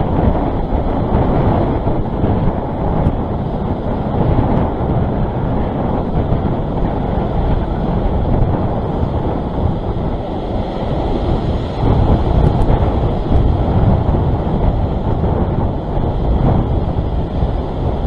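Wind buffeting the microphone over ocean surf breaking and washing against rock ledges: a loud, steady, rumbling rush with no distinct events.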